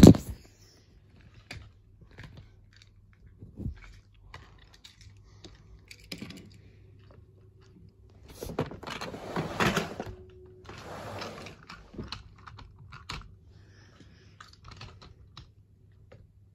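Scattered light clicks and rustles, with two longer stretches of rustling about eight and a half and eleven seconds in.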